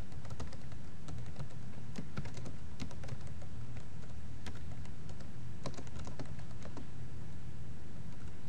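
Typing on a computer keyboard: irregular keystroke clicks in short runs, over a steady low hum.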